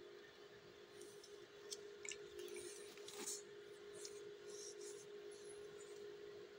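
Faint rustling and small clicks of adhesive tape and nitrile-gloved fingers as a nasogastric tube is taped down at a newborn's nose and cheek, over a steady hum.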